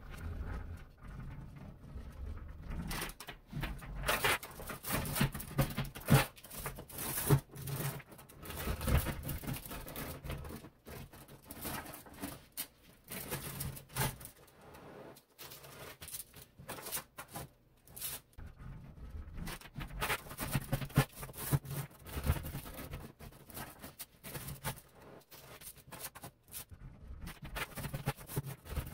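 A sheet of small neodymium magnet spheres being folded and pressed by hand around a ball: irregular clicking, rattling and crackling as the spheres snap together and shift against each other, in busy flurries with short pauses between.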